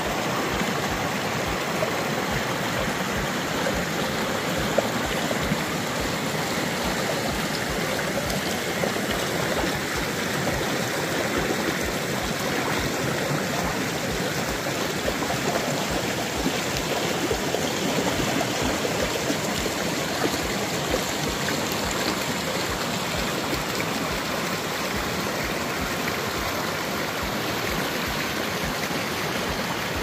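Mountain river babbling over smooth bedrock ledges in small rapids: a steady rush of water with little splashes.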